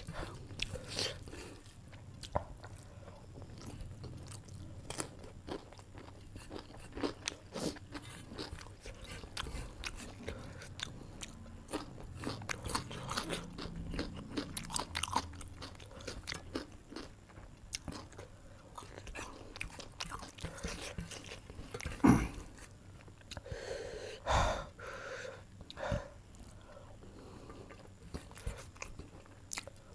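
Close-miked chewing and biting of a meal of chicken curry with rice and salad: wet mouth sounds and many small clicks and crunches. A sharp knock about two-thirds of the way through is the loudest sound.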